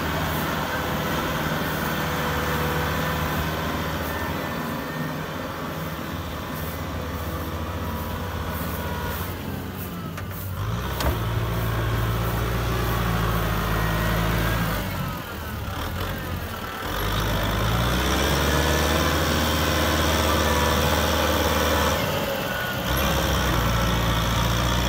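Kubota M6040SU tractor's diesel engine labouring as it pulls a trailer loaded with rice sacks through deep mud, its rear wheels spinning. The engine note rises and falls several times, with brief drops about two-thirds through and again near the end, and there is one sharp knock a little before the middle.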